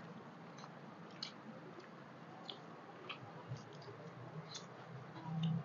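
Eating by hand: scattered soft, wet clicks of chewing and of fingers mashing and mixing rice, over a faint low hum. A brief louder low sound comes near the end.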